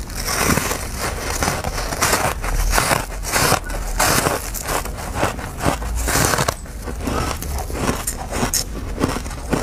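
Powdery, frosted freezer ice being bitten and chewed, giving a dense run of crisp crunches.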